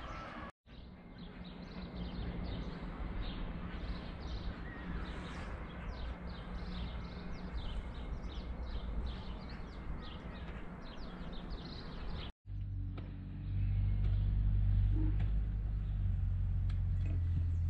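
Small birds chirping over and over in short falling notes, above a steady wash of outdoor background noise. About two-thirds of the way through, after a brief drop-out, a louder low rumble takes over and the chirping fades.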